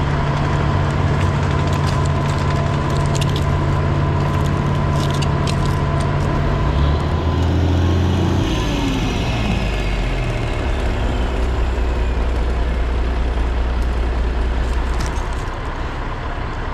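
Crane's heavy diesel engine running steadily under load, its pitch stepping up about seven seconds in and dropping back a second or so later, with a falling whine as it eases off.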